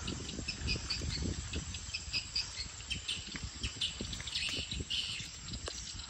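Many swiftlets twittering, short high chirps packed close and overlapping, over a low irregular rumble on the microphone.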